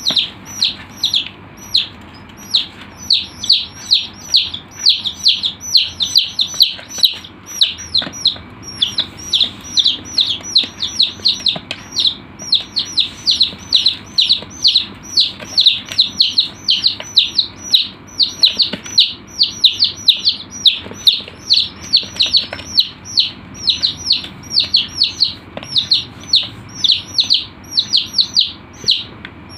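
Chicks peeping without a break: short, high, falling peeps, several a second, overlapping as from more than one chick.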